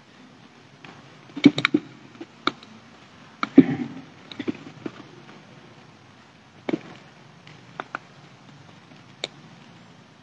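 Irregular knocks and clicks of a lectern microphone being handled and adjusted. A cluster of them comes about a second and a half in, the loudest knock about three and a half seconds in, and scattered single clicks follow over faint room hiss.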